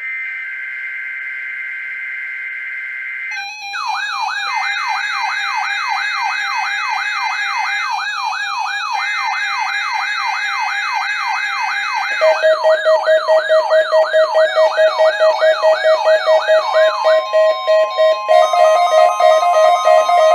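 NOAA Weather Radio Required Weekly Test: a buzzy two-tone SAME data header, then weather alert radios going off. A warbling siren starts about three seconds in, a fast pulsing beep joins about twelve seconds in, and a steady alert tone comes in near the end.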